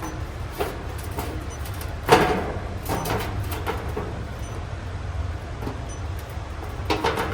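Steady low hum, likely the outdoor AC condenser unit running, with a series of knocks and clatters of handling. The loudest knock comes about two seconds in, and another cluster comes near the end.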